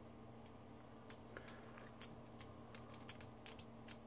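Small flathead screwdriver turning a screw in the metal base of an RTA vape tank to lock the deck in place: faint, irregular small metallic clicks and ticks, starting about a second in.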